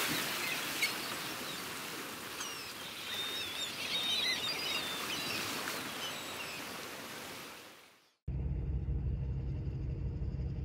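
Rushing surf-like wash of water with birds calling over it, fading out about eight seconds in. After a short break, a low steady rumble takes over.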